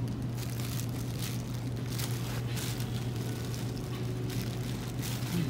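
Thin plastic bags and plastic wrap crinkling and rustling as they are handled, in irregular bursts over a steady low hum.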